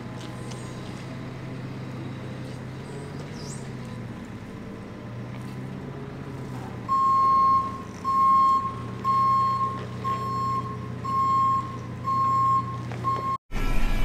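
JCB telehandler's diesel engine running steadily while it handles fertilizer bags. About halfway through, its reversing alarm starts beeping, roughly one and a half beeps a second, as it backs away from the trailer.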